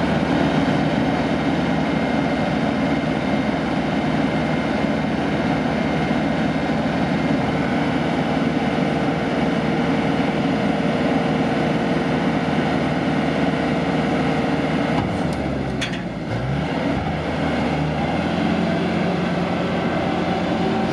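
AUSA site dumper's diesel engine running steadily while its hydraulic skip is tipped, with a steady whine over the engine note from about a third of the way in. About three-quarters through, the whine stops and the engine note dips and shifts as the dumper drives off.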